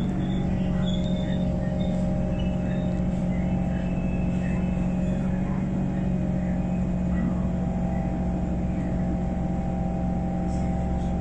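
Steady hum inside a C151 metro train car standing at a station: a low electrical drone with several steady higher tones above it that shift slightly in pitch now and then. Faint voices in the background.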